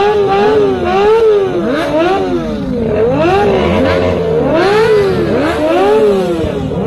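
Several Kawasaki ZX-25R inline-four engines on aftermarket racing exhausts being revved over one another, each rising and falling in pitch about once a second.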